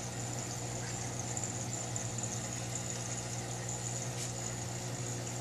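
Steady electrical hum with a faint hiss of water, typical of an aquarium filter's motor running.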